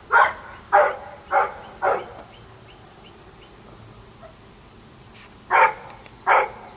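Dog barking, played back as a homemade phone ringtone: four short barks in quick succession, a pause of about three seconds, then two more barks near the end.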